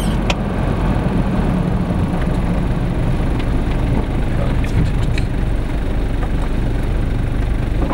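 Car driving, heard from inside the cabin: steady engine and tyre hum with a low drone. A few light clicks and knocks come through about five seconds in, as the car rolls from asphalt onto a rough, unpaved surface.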